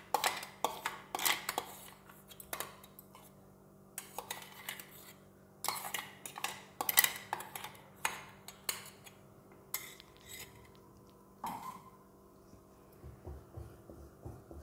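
A steel spoon scraping and knocking against a stainless-steel mixer-grinder jar, making irregular metallic clinks and scrapes as a ground paste is scraped out into a clay pot. Near the end a wooden spoon stirs the thick curry in the clay pot with a softer, rhythmic sound.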